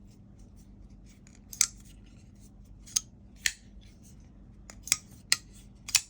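Spyderco folding knife being worked open and shut in the hand: about six sharp metallic clicks and snicks of the blade and lock, irregularly spaced.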